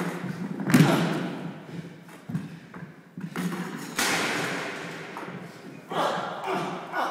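Heavy thumps of blows or bodies landing in a fight, about six of them at uneven intervals, each with a short echoing tail.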